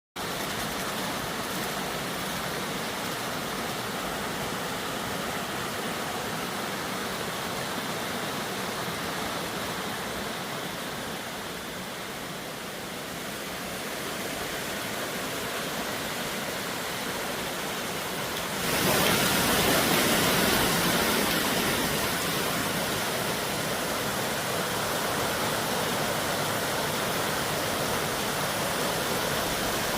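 Natural stream flowing: a steady rush of water that becomes abruptly louder and brighter about two-thirds of the way through.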